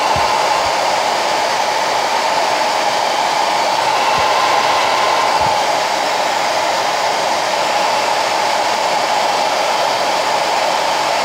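Handheld hair dryer running steadily, a rush of air with a hum in it, drying wet acrylic paint.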